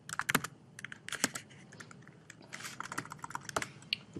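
Computer keyboard keystrokes: an irregular clatter of key presses and clicks as a command is copied and entered in a terminal.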